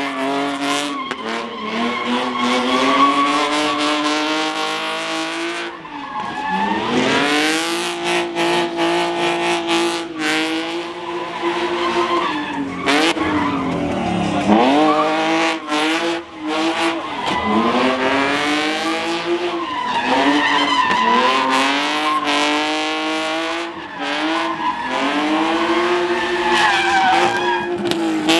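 Car engines revving high during drifting, their pitch swinging up and down as the throttle is worked, with tires squealing.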